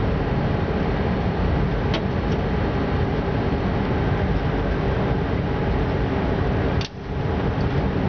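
Steady running noise of a train heard from inside the driver's cab at about 75 km/h: rumble and wheel-on-rail noise, with a faint tick about two seconds in. A little before the end the sound briefly drops away and comes straight back.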